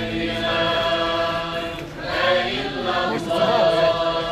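Voices chanting a slow religious melody: a long held note, then a wavering, ornamented line from about two seconds in.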